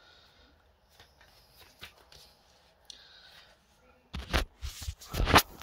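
Smartphone being picked up and handled, fingers rubbing and knocking right on its microphone: loud rumbling scrapes start about four seconds in. Before that there are only faint rustles.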